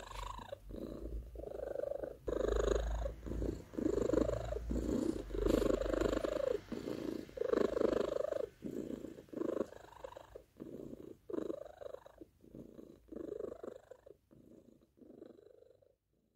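Domestic cat purring in a steady rhythm of breaths in and out, fading away over the last few seconds.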